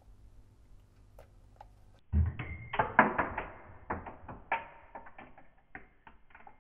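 Small pliers clicking and scraping against a metal circlip and the platter spindle as the clip is pushed onto the spindle. A quick cluster of clicks and knocks starts about two seconds in, with a brief metallic ring, and scattered clicks follow.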